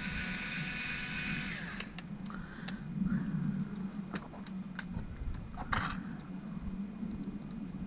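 Screwdriver prying at the small parts of a dismantled CD/DVD drive: a harsh scraping for the first couple of seconds, then scattered small metallic clicks and taps and a brief scrape, over a low steady hum.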